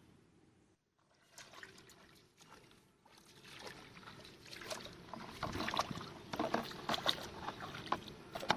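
Water splashing and sloshing in irregular bursts, building up from about three seconds in, with a sharp splash near the end.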